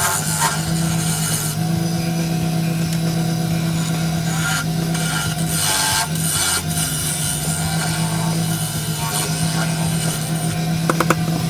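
Wood lathe running with a steady motor hum while a turning tool cuts a tenon into a wooden bowl blank, a rough scraping hiss of tool on spinning wood that drops away briefly a few times as the tool lifts off.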